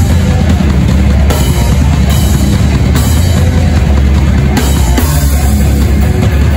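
A hardcore punk band playing live at full volume, with the drum kit loud and close: pounding bass drum and repeated cymbal crashes over distorted guitars and bass.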